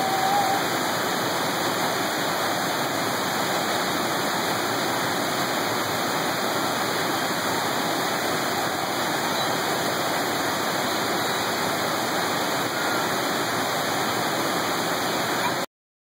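Water pouring over a dam spillway: a heavy, steady rush of whitewater that cuts off suddenly near the end.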